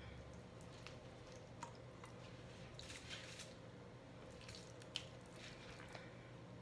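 Faint soft squishes and light clicks of raw chicken pieces being handled and pushed onto skewers, with a sharp tick about five seconds in, over a low steady hum.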